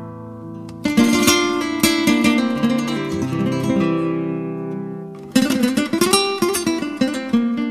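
Strummed acoustic guitar music, with a loud burst of chords about a second in and a run of rapid strums a little past the middle.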